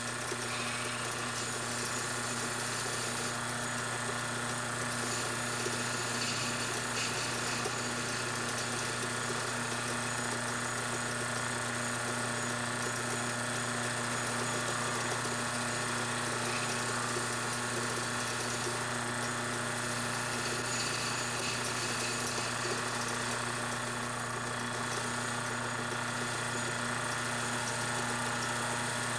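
A small 6-inch metal lathe running with a steady motor hum while a cutting tool takes a light cut on a spinning brass clock barrel.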